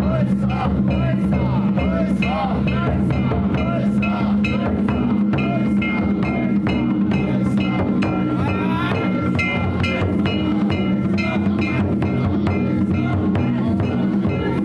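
Danjiri float festival music: drum and gongs beaten in a steady, fast rhythm, with a sustained metallic ringing over it.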